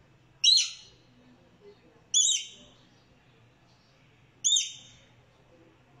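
Rainbow lorikeet giving three short, high-pitched calls, about two seconds apart.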